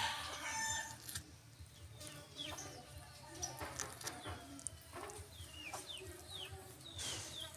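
Birds giving repeated short chirps that fall in pitch. A rooster's crow trails off in the first second.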